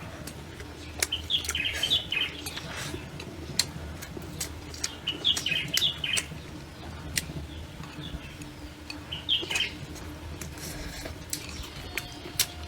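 Small birds chirping in three short bursts of quick notes, mixed with scattered sharp clicks and knocks over a low steady background hum.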